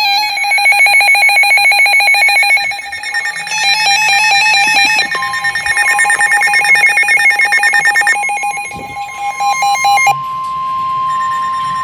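Several NOAA weather radios sounding their alert alarms at once: rapid, pulsing electronic beeps at several pitches. About five seconds in, the steady 1050 Hz NOAA Weather Radio warning alarm tone joins and holds; this tone signals that a warning is about to be broadcast.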